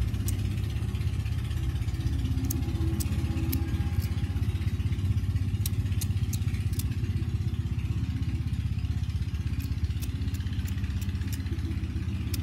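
Flint wheel of an antique aluminium petrol lighter being thumbed over and over, a sharp click every half second or so in bunches, the lighter hard to light. Under it runs a steady low engine-like drone, the loudest sound.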